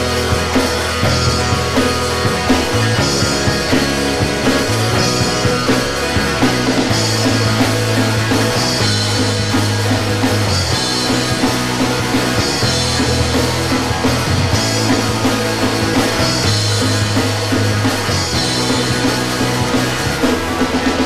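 Rock band playing: electric guitars over held bass notes that change every second or two, with a drum kit and cymbals keeping a steady beat.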